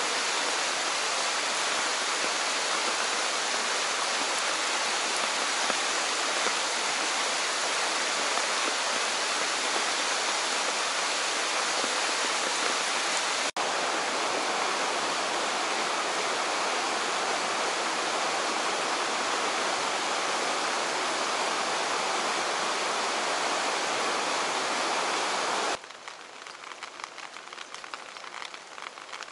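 Rushing water of a rain-swollen, muddy stream in flood, a loud, steady rush. After a sudden cut about halfway it goes on at a similar level as heavy rain on flooded ground. Near the end it drops to quieter rain pattering on wet pavement.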